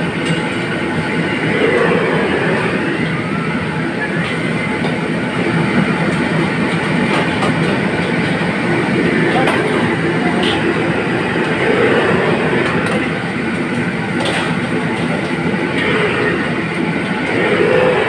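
Steady rushing noise of a commercial gas wok range, with food sizzling in the wok and a few sharp clinks of a metal ladle against the pan.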